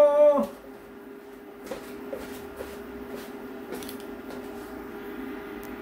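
A steady hum with a few soft, scattered pops and clicks from a pot of kimchi stew heating on a tabletop cooker.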